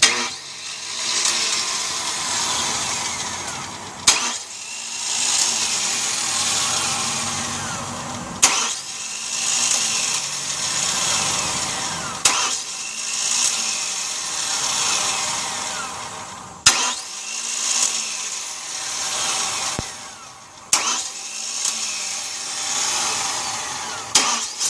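1998 Chevrolet Cavalier's starter motor cranking the engine over and over without it catching, in spells of about four seconds, each opening with a sharp click. A no-start despite a working starter, fuel filter and fuel pump.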